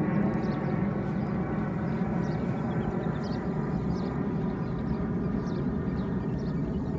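A steady mechanical hum with a constant drone, like a running engine or motor.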